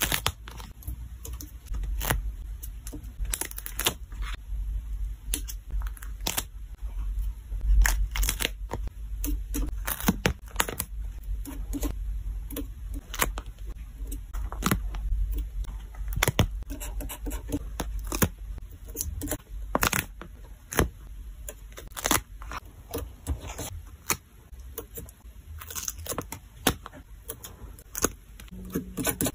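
Paper stickers being peeled off their backing sheets with tweezers and pressed down onto a paper scene: irregular crackly peeling with many sharp clicks and taps, over a low rumble through the first two-thirds.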